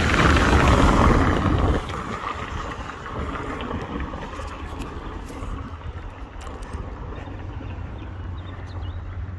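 A car passing close by: a loud rush of road noise for about the first two seconds that cuts off abruptly, followed by steady wind rumble on the microphone.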